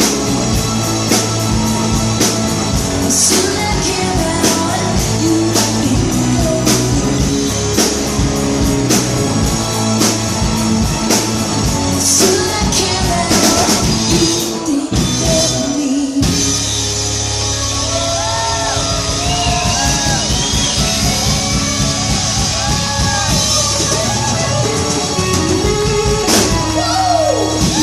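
Rock song with a singer over guitar and drums. The drums keep a steady beat for the first half, then the band moves to held low notes under the singing.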